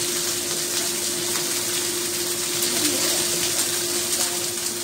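Chicken pieces frying in oil in a nonstick frying pan: a steady sizzling hiss with faint scattered crackles, over a steady low hum.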